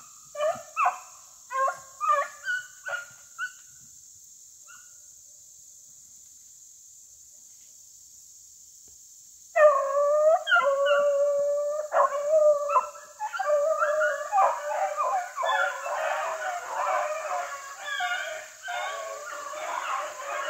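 Rabbit hounds giving voice on a rabbit's track. There are several short yelps in the first few seconds, a pause, then from about halfway through several hounds bay together in a continuous, overlapping chorus of howls.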